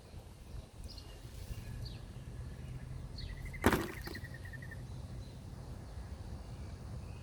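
Songbirds chirping, with short high calls and a quick trill in the middle, over a steady low rumble; a single sharp knock sounds about three and a half seconds in and is the loudest thing.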